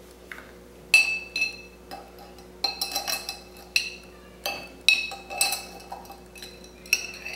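Metal teaspoon clinking against a glass mason jar while scooping pennies out of the vinegar-and-salt solution inside: about a dozen irregular clinks, each with a brief high glassy ring.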